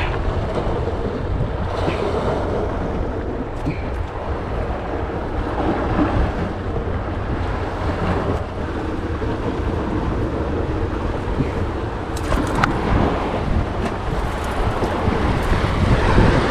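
Wind buffeting the microphone over the steady wash of a rough sea, with a few faint clicks a little past the middle.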